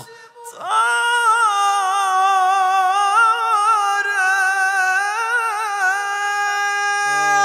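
A man singing solo and unaccompanied into a microphone, a Persian devotional poem (qasida) in a high voice: after a short breath he holds one long line for about seven seconds, with quick wavering ornaments on the held notes.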